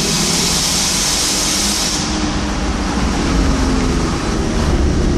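Fiat Coupé 20V Turbo's turbocharged inline-five engine on its stock exhaust, running just after a rev. A loud hiss sits over it for the first two seconds and then stops, and the engine note grows stronger again near the end.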